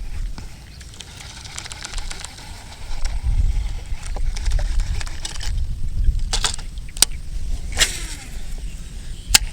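Strong wind buffeting the microphone in a steady low rumble, with a few sharp clicks or knocks in the second half.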